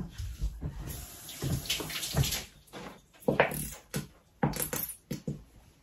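Water running from a kitchen tap into the sink for about two seconds, then several short knocks.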